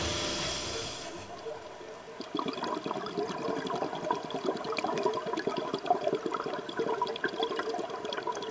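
Underwater recording of scuba divers' exhaust bubbles gurgling from their regulators, with a dense, irregular crackling that sets in about two seconds in.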